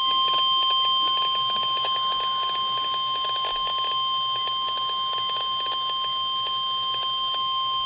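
NOAA Weather Radio warning alarm: a single steady tone of about 1050 Hz held without a break, with faint static crackle behind it. The tone signals that a weather warning broadcast follows.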